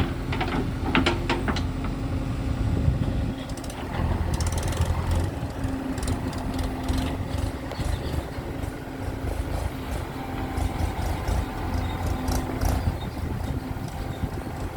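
Heavy diesel engine of earth-moving machinery running steadily, with scattered clicks and knocks.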